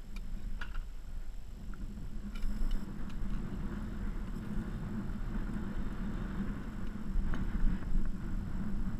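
Steady low hum of a fishing boat's motor running, with a few light clicks from fishing tackle being handled.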